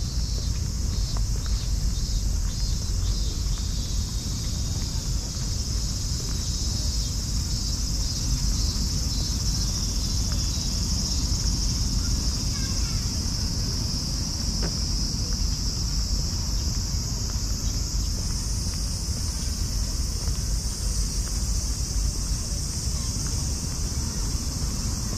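Cicadas in the trees, a steady high-pitched drone that never lets up, over a low rumble of wind on the microphone.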